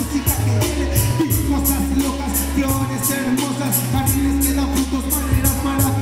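Live hip hop: a rapper's voice through the microphone and PA over a beat of long, deep bass notes and a steady, regular hi-hat.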